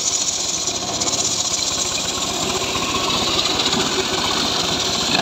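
Homemade circular saw bench ripping lengthwise through a log, the blade's cutting hiss running steadily over the hum of the machine's drive.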